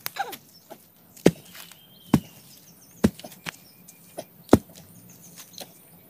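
Wood being chopped: four heavy blows roughly a second apart, the last one loudest, with a few lighter strokes between them.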